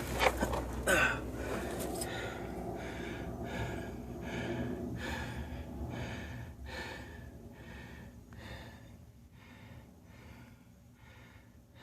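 A person breathing hard in a quick, steady rhythm, about two breaths a second, fading toward the end, with a couple of short knocks about a second in.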